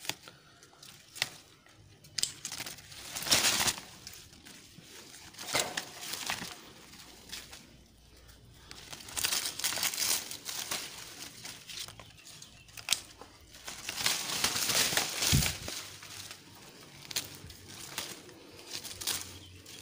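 Grapevine leaves and canes rustling and crinkling as they are handled, in several spells, with sharp clicks of hand pruning shears scattered between them.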